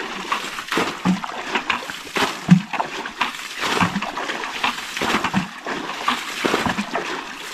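Water splashing and sloshing as a plastic bucket is dipped again and again into a shallow stream pool and its water is flung out, bailing the dammed pool dry. The splashes come irregularly, about one a second, and the loudest is a sharp splash about two and a half seconds in.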